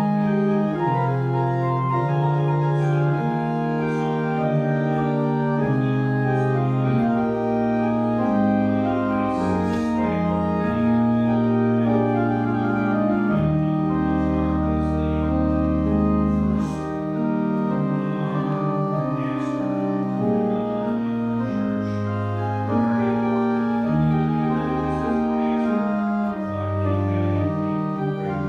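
Pipe organ playing a classical piece in sustained chords that change every second or so, with very low bass notes coming in about halfway through.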